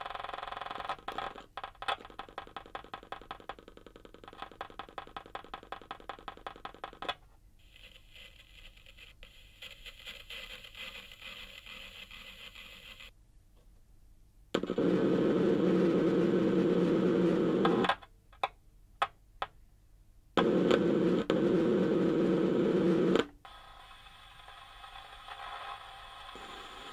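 Glitching output of a circuit-bent BOSS DD-6 delay pedal, driven through small loudspeaker drivers resting on a snare drum head and a cymbal, changing abruptly as a wire is touched to points on its exposed circuit board. It starts as a rapid stutter of about four pulses a second, drops to a quieter hiss, then gives two loud buzzes of about three seconds each with a few clicks between them, and settles into a lower hum near the end.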